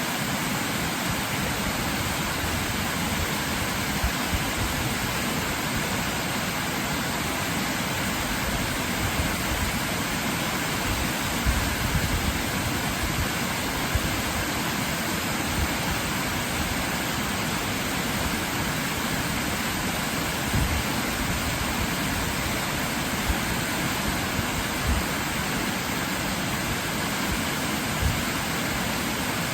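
Waterfall: a steady, full rush of falling water, with a few brief low thumps scattered through it.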